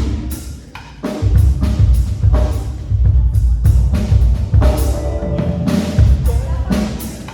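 Live band music: a drum kit with bass and sustained pitched instruments. The beat drops back briefly about a second in, then comes back in full.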